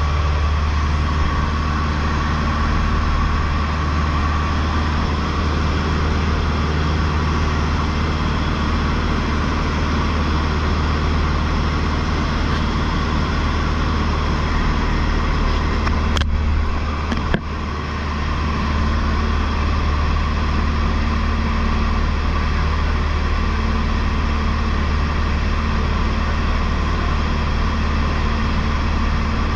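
Cessna 152's four-cylinder Lycoming O-235 engine and propeller droning steadily in flight. Two sharp clicks about a second apart come just past halfway.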